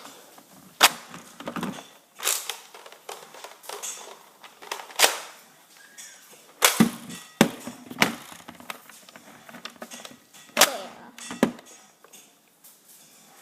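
Toy Nerf blaster firing foam darts: a series of sharp clicks and pops, about eight spread unevenly over several seconds.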